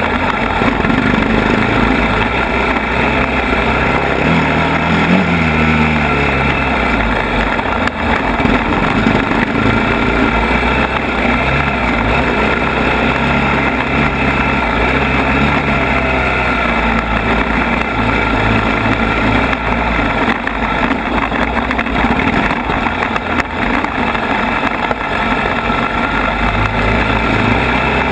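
ATV engine running as the quad is ridden along a rough trail, its pitch rising and falling with the throttle, over a steady rushing noise.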